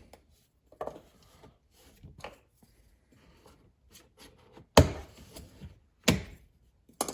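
Plastic trim removal tool prying at a Corvette center console's side trim panel: faint scrapes and taps, then three sharp plastic clicks about five, six and seven seconds in as the panel's retaining clips are worked loose.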